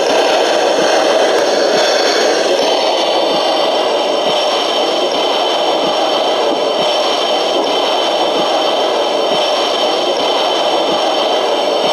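LGB G-scale model train running steadily along the track, its wheels rattling and scraping on the rails, with faint scattered clicks.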